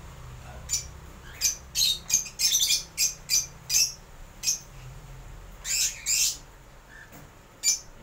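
Cockatiels giving a run of short, sharp calls: a quick volley in the first few seconds, two longer squawks about six seconds in and a last one near the end.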